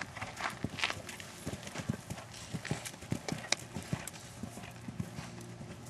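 Hoofbeats of a horse cantering on soft sand arena footing: a quick, uneven run of dull thuds.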